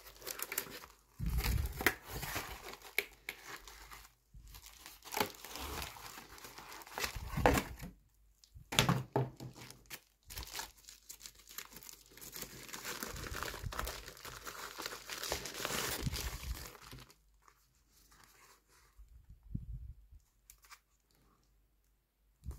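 Plastic packaging and bubble wrap being unwrapped by hand: crinkling and tearing in irregular bursts, dying down about three quarters of the way through to a few soft handling sounds.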